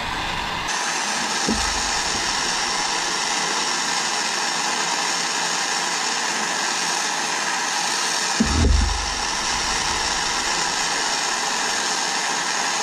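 Handheld gas torch flame hissing steadily as it heats a buckle to flow hard silver solder; the hiss grows stronger just under a second in. A dull low thump comes about eight and a half seconds in, with a smaller one near the start.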